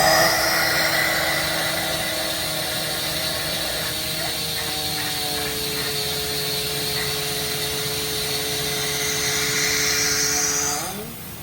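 Parpas Diamond Linear 5-axis gantry machining center running: a steady machine whine with several held tones over a high hiss, which shift a little about four seconds in. Near the end the tones glide briefly upward and the sound drops away sharply.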